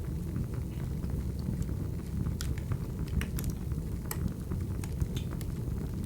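Recorded wood fire burning: a steady low rumble with irregular sharp crackles and pops from the burning logs.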